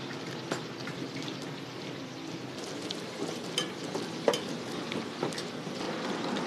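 Dozens of eggs frying in a wide pan of hot oil: a steady sizzle with a few sharp clicks scattered through it.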